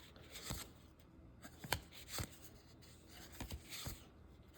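Baseball trading cards handled and slid against each other as a pack is flipped through, giving a few faint clicks and soft rubs.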